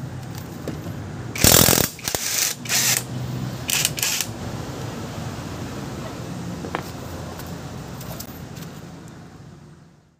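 Cordless impact wrench running in several short bursts between about one and a half and four seconds in, spinning off the wheel's lug nuts.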